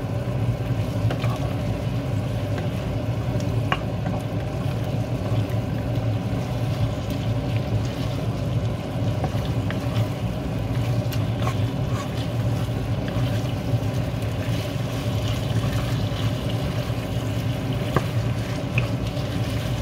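Pork belly sizzling with shrimp paste in a frying pan while a wooden spatula stirs and scrapes it, with scattered light clicks of the spatula against the pan, over a steady low hum.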